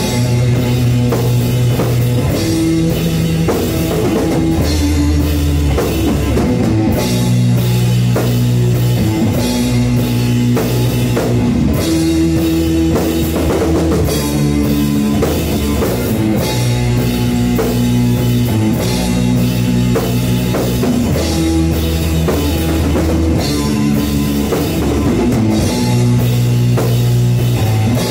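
Live band playing a slow blues-rock riff on guitar and drum kit: long low notes that change every couple of seconds over steady drum beats.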